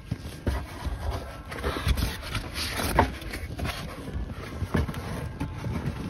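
Rustling and scraping of the car's trunk carpet lining as a gloved hand pulls it back, with irregular knocks and bumps from the handling.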